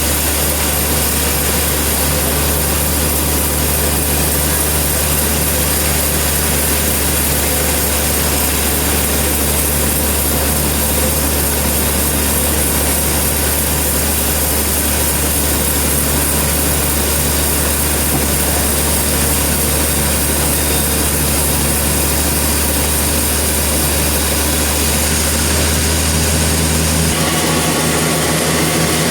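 Sawmill engine running steadily with a deep hum. Its note changes about two seconds before the end.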